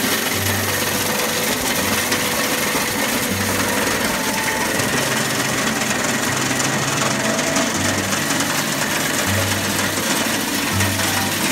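Roasted coffee beans tumbling and rattling against the metal wall of a turning roasting drum, a steady dense clatter.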